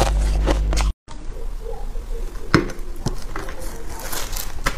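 Close-miked chewing of crushed ice: a quick run of crisp crunches that cuts off sharply about a second in. After that, only a few scattered faint clicks.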